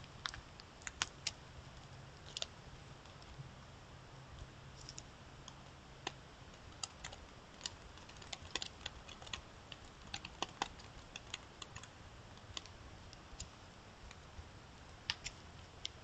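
Scattered light clicks and ticks at irregular intervals, some sharper than others, over faint background hiss. A low steady hum stops about six seconds in.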